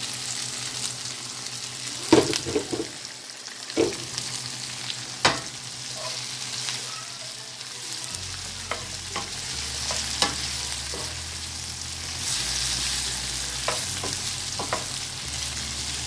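Sliced onions and bell peppers sizzling in oil in a frying pan, stirred with a wooden spoon that knocks against the pan every few seconds.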